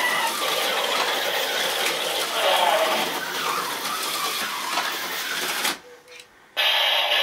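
Slot cars running on a Tyco Mattel Super Sound Grand Prix track layout: small electric motors whirring and the cars clattering along the plastic track. Near the end the sound cuts out for under a second, then starts again.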